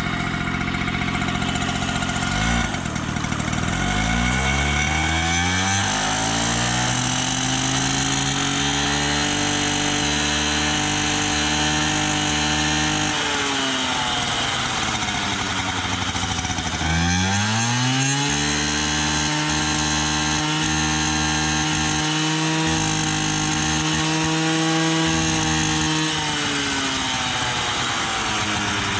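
Peugeot 103 moped's 49 cc two-stroke single-cylinder engine revved up twice while standing: each time the pitch climbs, is held high for several seconds, then falls back to idle.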